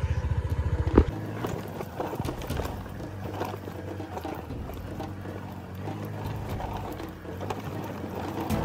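Motorcycle engine running with a fast, even beat, ended about a second in by a sharp knock. After that, quieter irregular clicking and rattling.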